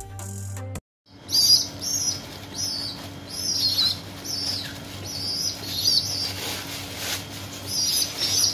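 Ten-day-old domestic pigeon squabs giving a run of high, wavering cheeps about twice a second, the begging calls of unweaned young, with the flutter of flapping wings.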